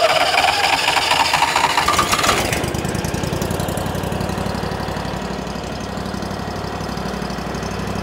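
The wood chipper's Rato V-twin engine has just started. It revs up with a rising whine for about two seconds, then drops back to a steady idle as it warms up.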